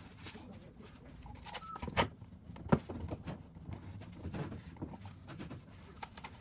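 Workbench handling noise: a scatter of knocks and clicks as hand tools and a bar clamp are picked up and set down on a board, with two sharper knocks about two seconds and nearly three seconds in.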